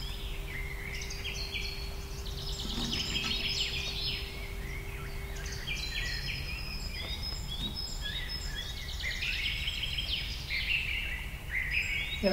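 Many birds chirping and singing at once, short repeating calls overlapping throughout, over a low rumble, with a faint steady hum in the first half.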